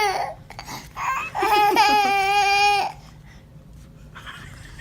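A baby laughing and squealing: a long, high-pitched, wavering squeal starts about a second in and lasts nearly two seconds.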